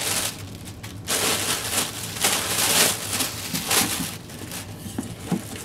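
Plastic air-cushion packing being pulled out of a cardboard shipping box, crinkling and rustling, with a few light clicks near the end.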